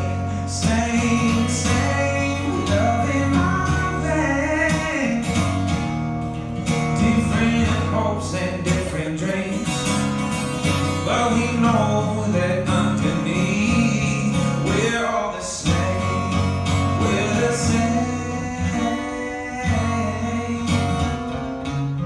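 Live acoustic guitar music: several acoustic guitars playing a country-style song together, with some singing.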